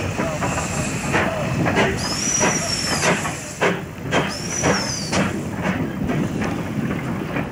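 Steam tank locomotive moving slowly, with a steady hiss of steam and irregular sharp exhaust beats. Two brief high squeals rise and fall near the middle.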